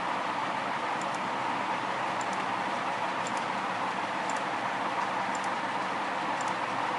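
Steady hiss of background noise, with a faint high tick about once a second.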